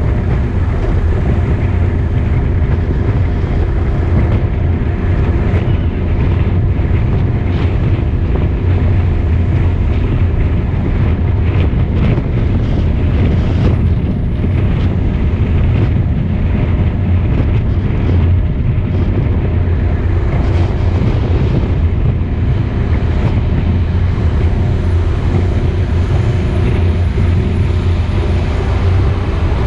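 Car engine and road noise heard from inside the cabin while driving, a steady low drone.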